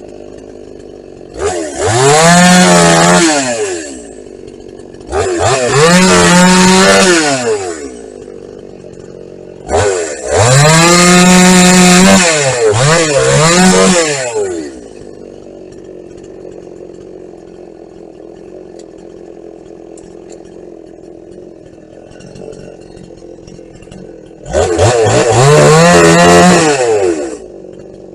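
Two-stroke Husqvarna chainsaw idling, then opened up to full throttle four times for about two to five seconds each, dropping back to idle between. These are the cuts of snedding branches off a felled tree.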